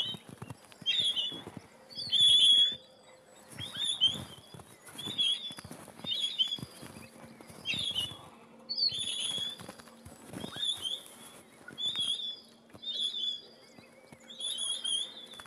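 Pine grosbeak calling over and over, a short call note about once a second. The calls come with rustling bursts of wing-flapping from a grosbeak struggling in a mist net.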